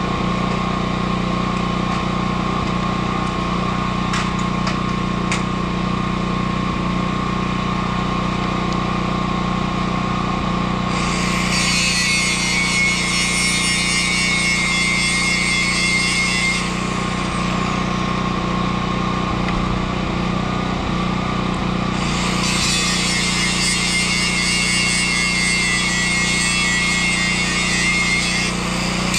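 Angle grinder running steadily on steel. Twice, for about five or six seconds each, the disc bears on the metal and a loud, high grinding noise rises over the motor: once about a third of the way in and again toward the end.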